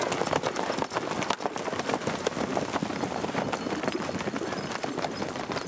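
Hooves of several horses on a dirt track, a dense irregular clatter of hoof falls.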